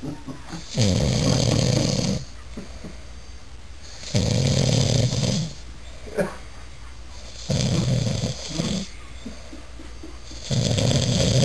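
Snoring: four loud snores, each about a second and a half long and about three seconds apart.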